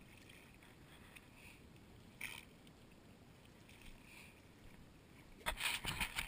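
Faint lapping of shallow water, then, about five and a half seconds in, a run of loud splashing and sloshing as a ghost shrimp pump is worked down into the wet sand underwater.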